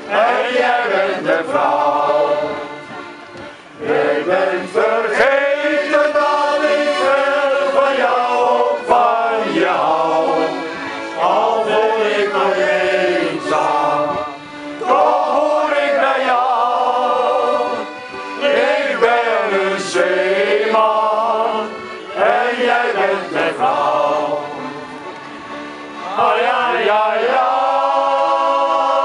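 Men's shanty choir singing together, phrase by phrase, with short breaks between phrases.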